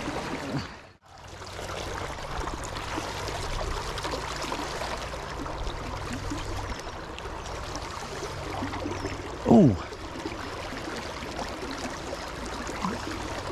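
Steady rush of flowing river water, which drops out for a moment about a second in. About nine and a half seconds in comes one short, loud sound that slides quickly down in pitch.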